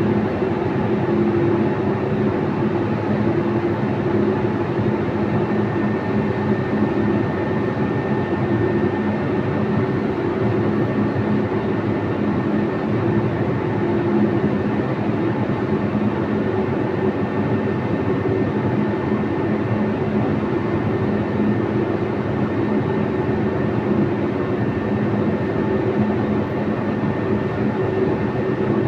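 Steady mechanical hum with a constant rushing noise, unchanging throughout, like a running motor or fan.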